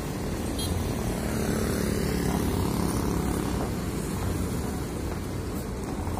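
Large coach's diesel engine pulling away at low speed: a steady drone that swells about two seconds in as the bus passes, then eases off near the end.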